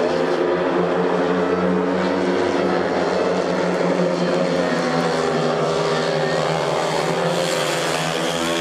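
Four speedway bikes' 500 cc single-cylinder methanol engines running flat out in the race, a loud, steady layered drone of several engine notes that shift a little in pitch as the riders go through the bends.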